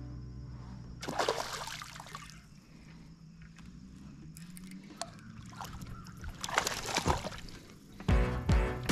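Small hooked bass splashing and sloshing at the surface beside the boat as it is reeled in, with a few separate splashes.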